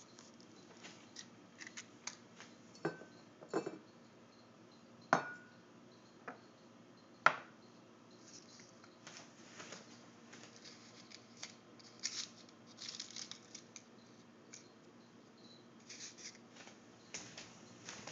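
A glass knocking on a tiled countertop: three sharp clinks with a short ring, the loudest about seven seconds in, followed by softer scraping and handling noise.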